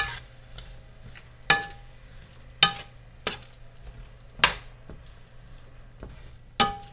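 Metal spoon clinking and scraping against a stainless steel skillet as diced chicken and bell peppers are stirred, with a faint sizzle of frying underneath. The sharp clinks come irregularly, about six in all.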